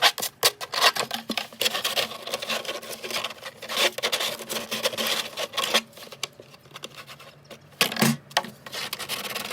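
Irregular scraping and rubbing strokes of hand work on hard plastic bucket and feeder parts, with short clicks, easing off for a couple of seconds about six seconds in.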